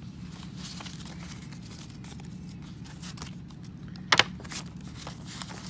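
Paper banknotes rustling and a clear plastic cash envelope crinkling as bills are handled and stuffed, with a louder sharp crinkle about four seconds in. A steady low hum runs underneath.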